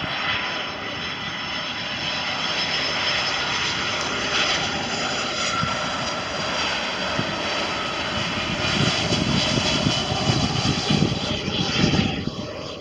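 Boeing 757's twin turbofan jet engines on final approach: a steady jet roar with a thin high-pitched whine over it. It grows louder as the airliner comes in low over the runway, with a heavier rumble in the second half.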